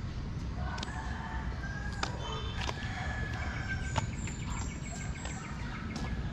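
A rooster crowing: one long held call in the first half, heard over a steady low rumble and scattered sharp clicks.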